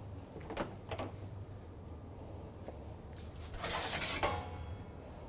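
Metal kitchenware handled: two light knocks, then a clatter with faint metallic ringing about three and a half seconds in, as a metal baking pan is fetched.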